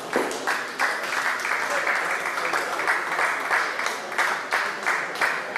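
Small crowd of spectators applauding after a point in a table tennis match, individual claps distinct, dying away near the end.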